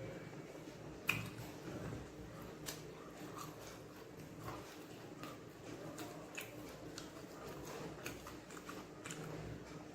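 A man eating chicken fried rice and egg podimas: soft chewing and mouth smacks with scattered small clicks, the sharpest about a second in.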